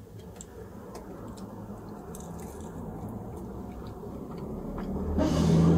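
Close-up chewing and biting of a flaky-pastried beef empanada, with small crunches and mouth sounds. Near the end a louder low rumble swells up.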